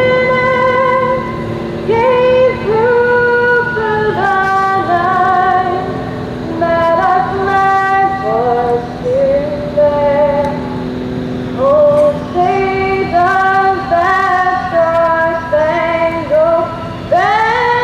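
A woman singing a slow solo melody, holding long notes with vibrato, over a faint steady low drone.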